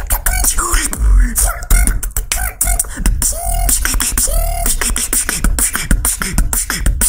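Human beatboxing: a fast, dense run of kick, snare and click sounds over a deep bass, with a few short pitched vocal glides mixed in.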